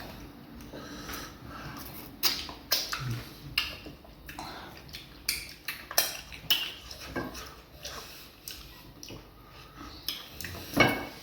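Bowls and dishes clinking and knocking at the table, about a dozen sharp, irregular hits with a louder knock near the end.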